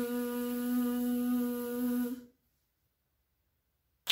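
A woman holding a steady, buzzing 'vvv', the sound of the letter V, for a little over two seconds. A single sharp finger snap follows near the end.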